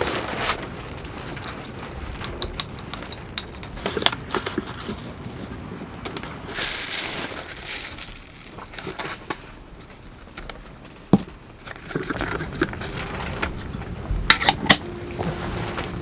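Manual hand coffee grinder and ground coffee being handled over a paper filter: irregular clicks, taps and crackling rustles, with a brief hissing rustle about seven seconds in as grounds are tipped into the filter, and a quick cluster of sharper clicks near the end.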